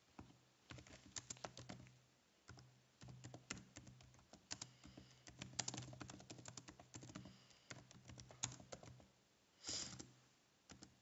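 Faint typing on a computer keyboard: quick, irregular keystrokes in short runs with brief pauses between words. A short hiss comes about ten seconds in.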